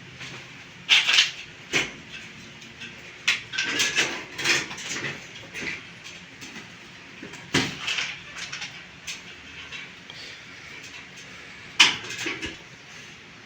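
Irregular knocks, clunks and clatter from work on a wooden bed base being repaired, with the sharpest knocks about a second in and near the end.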